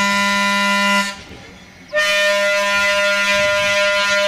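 Electric interurban railcar's air horn sounding long blasts for a grade crossing: one blast cuts off about a second in, and a second long, steady blast starts about a second later.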